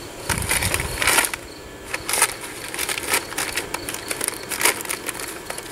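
Paper microwave popcorn bag rustling and crackling as it is lifted out and pulled open, in a string of irregular crinkles with several louder clusters.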